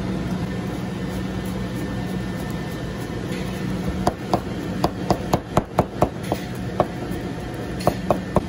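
Chef's knife chopping garlic on a plastic cutting board: about a dozen quick, sharp knocks starting about halfway through, then three more near the end, over a steady low kitchen hum.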